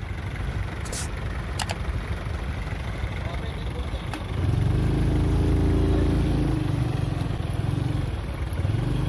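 Tractor engine running. It revs up, louder and higher, about four seconds in, eases back near seven seconds and picks up again near the end, as a tractor works against soft paddy-field mud. A few sharp clicks sound early on.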